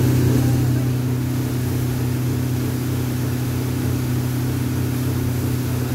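Mercury outboard motor running at a steady cruising speed, driving a small open boat: a constant low drone that eases slightly about a second in.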